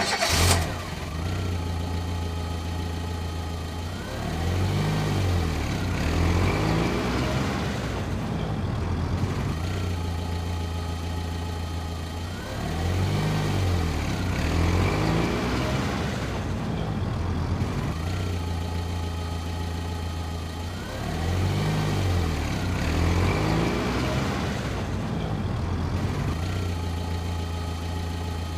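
Engine running steadily, tractor-like, with a rise and fall in pitch that comes back evenly about every eight seconds.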